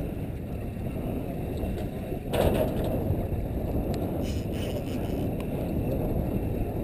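Steady low rumble and wash of a boat at sea on choppy water, with a short louder rush about two and a half seconds in.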